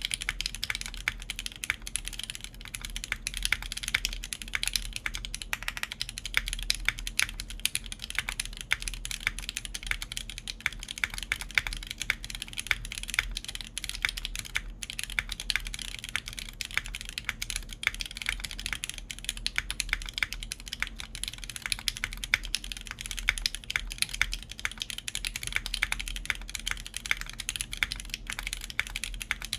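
Continuous typing on a Tech Bear TB-65F mechanical keyboard with lubed JWK Alpaca linear switches, GMK Cosmos keycaps and a full copper plate, set in its spring capsule mount: a dense run of keystrokes with a low desk rumble underneath.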